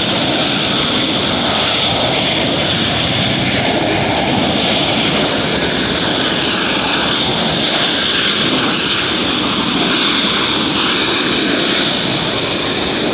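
Jet engines of a Boeing 737 airliner on its landing roll along the runway: a steady, even rush of engine noise with a hiss on top.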